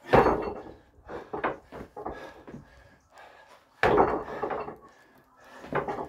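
Trainers landing on a stack of concrete paving slabs during box jumps: three heavy thuds, at the start, about four seconds in and near the end, with lighter scuffs and knocks from stepping down between them.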